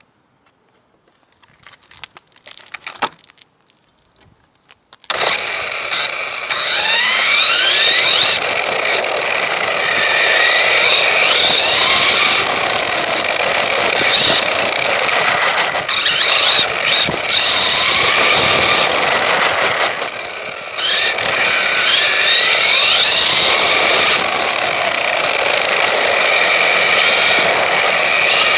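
Small vehicle's motor starts suddenly about five seconds in, after near quiet with a few faint clicks. It then runs hard, its whine sweeping up and down again and again as it revs, over a steady rushing noise, with a brief drop just before the twenty-first second.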